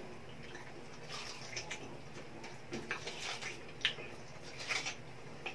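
Wet chewing and lip-smacking of people eating braised pork humba with their hands: a run of short moist smacks and clicks from about a second in, over a low steady hum.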